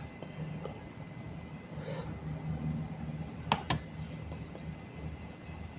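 Two sharp computer mouse clicks in quick succession about three and a half seconds in, over a low, steady background hum.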